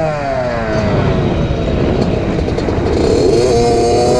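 Two-stroke engine of a 2003 Suzuki RM60 mini dirt bike, revs falling off for about two and a half seconds, then climbing steadily again as it pulls.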